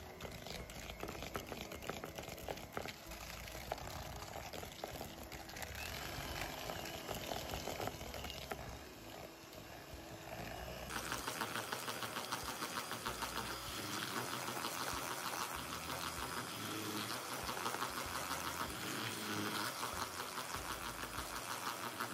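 Electric hand mixer running steadily, its beaters creaming butter and sugar in a plastic bowl. About eleven seconds in the sound turns brighter and sharper.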